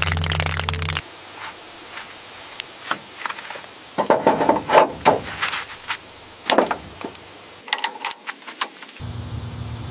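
Scattered short knocks and clicks, with a cluster of louder clattering about four to five seconds in and another sharp knock a little later.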